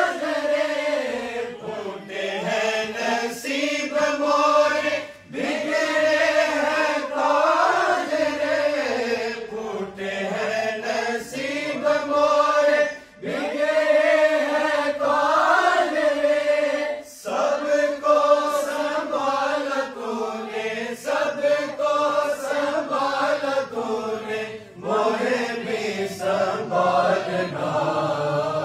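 A group of men and boys chanting a durood (salutation on the Prophet) together in unison, unaccompanied, in long drawn-out sung phrases with brief breaks for breath between them.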